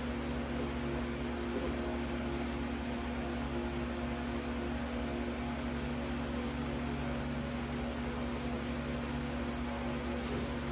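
Steady electric motor hum, holding one pitch throughout with no starts, stops or changes in speed.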